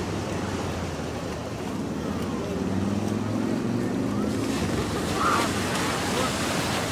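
Beach ambience: a steady wash of surf with wind buffeting the microphone.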